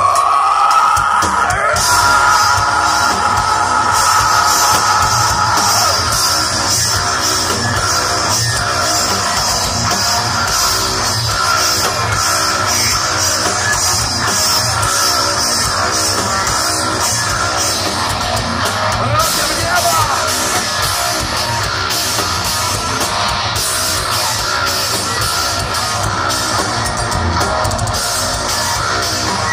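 Heavy rock band playing live through a festival PA, with electric guitars and drum kit, heard from within the crowd.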